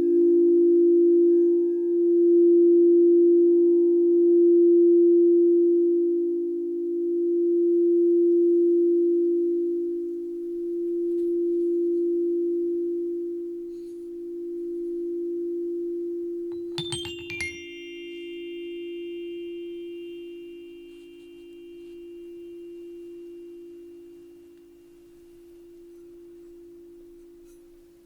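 A crystal singing bowl's low tone rings on and slowly dies away, pulsing in slow waves about every four seconds. About two-thirds of the way through comes a quick flurry of small high strikes that ring on for several seconds.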